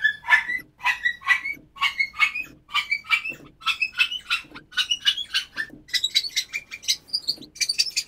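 A sampled dog bark played again and again from a keyboard sampler, each note higher than the last, about two to three barks a second. Because the pitch shift also speeds the sample up, the barks grow shorter and higher, moving from a dog-like bark toward small bird-like chirps.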